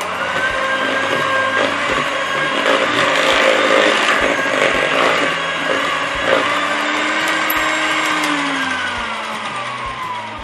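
Electric hand mixer running, its beaters whipping butter icing in a plastic bowl. It gives a steady motor whine, and near the end its pitch falls and it gets quieter.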